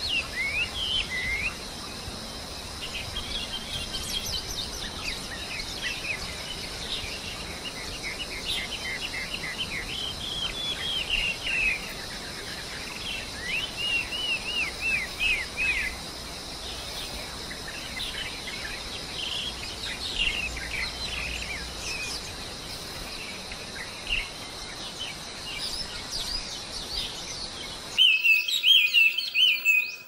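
Chinese hwamei (wambi) chirping in quick runs of short, curved notes over a steady high hiss, with a louder, denser burst of song near the end.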